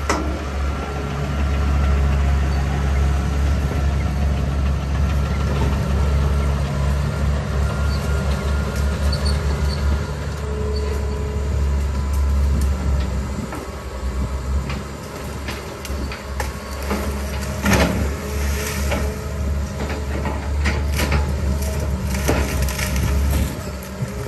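A heavy vehicle's engine running steadily with a low hum, a little quieter in the second half, with a few sharp knocks near the end.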